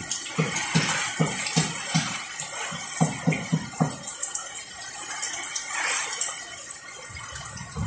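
Tropical storm wind and heavy rain making a constant rushing noise, rising briefly near the end. Through the first half there is a regular low thumping, two or three beats a second.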